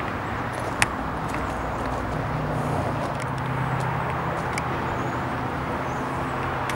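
Heavy-truck diesel engine idling with a steady low hum, with a few sharp ticks and one louder click about a second in.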